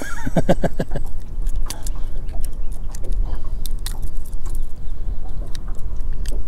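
Metal fishing pliers and a crankbait's treble hooks clicking and scraping as the lure is worked out of a smallmouth bass's mouth: irregular sharp ticks, with a quick run of knocks in the first second, over a steady low rumble.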